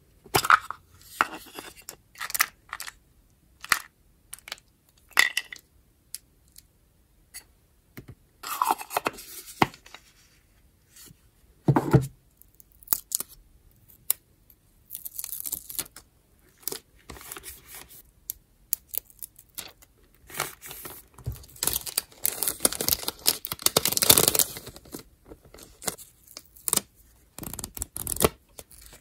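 Close-up paper-craft handling: a wooden stamp box clicking and tapping, then stickers and paper being peeled, rustled and torn. The longest and loudest stretch of rustling and tearing comes about three quarters of the way through, with a single low thump a little before halfway.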